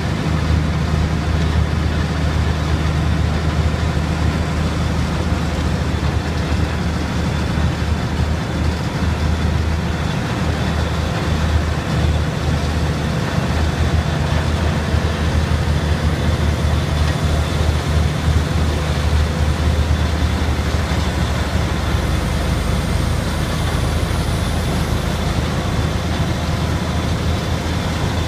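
Vermeer TG 400 tub grinder running steadily under load, its 425 hp CAT 3406 diesel engine driving the mill as it grinds wood waste into mulch. A loud, constant machine drone with a deep engine tone.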